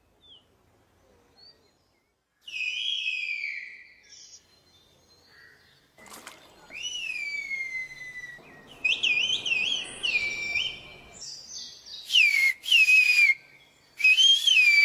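Human whistled speech in the Turkish whistled language (kuş dili, 'bird language'): about five loud whistled phrases with sliding pitch, most ending in a falling glide, used as a long-distance call to a neighbour by name in place of a phone.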